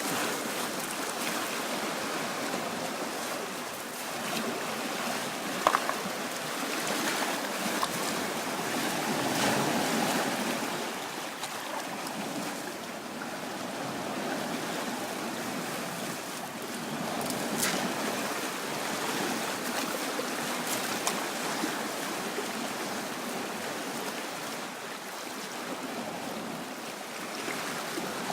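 Sea waves washing onto the shore in a steady rush, swelling and easing every several seconds.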